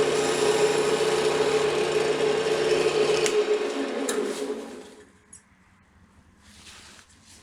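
Wood lathe running with a turning tool cutting the spinning fatwood: a steady scraping hiss over the motor hum. About three seconds in, the lathe is switched off and winds down, its pitch falling and the sound fading out by about five seconds. Faint small clicks follow.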